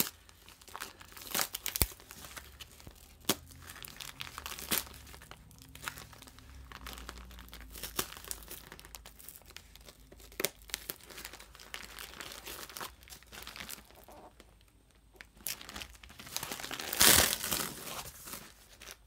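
Scissors snipping through a taped cardboard box, with plastic wrapping and vacuum-sealed bags crinkling and cardboard tearing in irregular bursts and sharp clicks. The loudest tearing and rustling comes near the end, as the box is pulled open.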